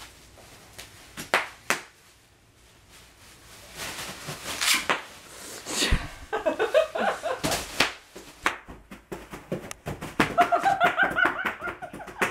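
Bubble wrap popping and crinkling under a toddler's hands, knees and body, with a scatter of sharp pops that grows busier in the second half. A young child's laughing squeals come in over the pops twice.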